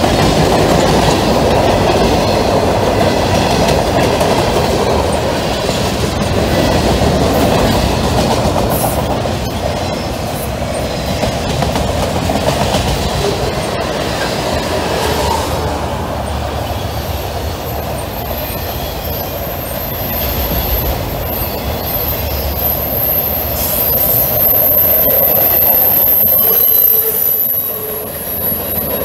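Norfolk Southern mixed freight train's cars rolling past at speed: a loud, steady rumble and rattle of steel wheels on the rail with scattered clicks. A thin, high-pitched squeal comes in about halfway through and grows stronger near the end.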